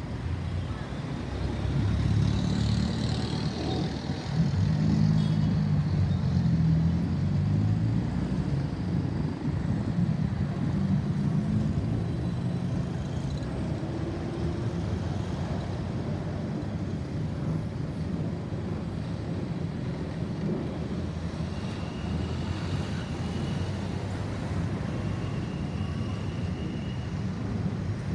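Road traffic: a motor vehicle's engine passes close and loud during the first dozen seconds, then steady traffic noise continues. A few short, high, steady tones sound near the end.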